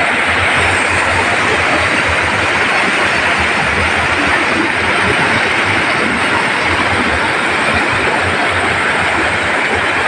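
A waterfall's water rushing steadily over rock slabs and small cascades, loud and even throughout.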